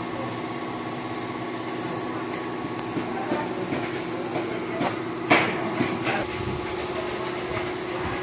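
A machine running with a steady, even hum, and a few metallic knocks and clanks over it, the loudest about five seconds in.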